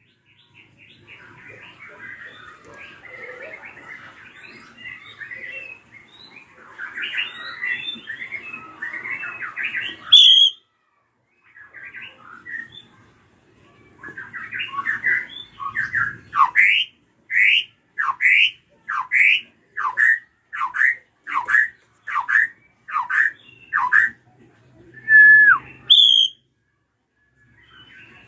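A drongo (srigunting krantil) calling. First comes a long run of dense, scratchy chatter. Then a loud series of sharp downslurred notes follows at about two a second, and a couple of clear whistled notes come near the end.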